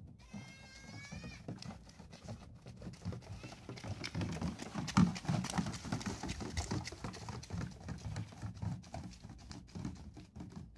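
A donkey's hooves on a gravel dirt road, the steps and knocks loudest as it passes close about halfway through. A short wavering high call sounds near the start.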